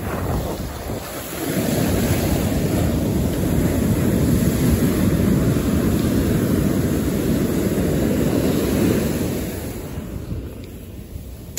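Ocean surf breaking and washing up the beach, with wind buffeting the microphone. The rush swells about a second and a half in, holds, and eases off near the end.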